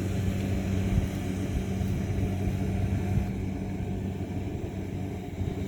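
Diesel engine of rice-harvesting farm machinery running steadily, a low even hum with rumble.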